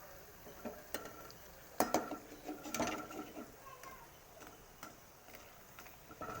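A metal utensil knocking and scraping against a pan while stirring: a few sharp clinks with brief ringing, the busiest stretch about two to three seconds in.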